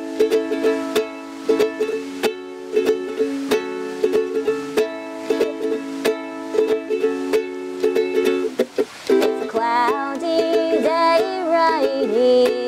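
Acoustic guitar and ukulele strumming chords together. About nine or ten seconds in, a woman's singing voice comes in over the strumming.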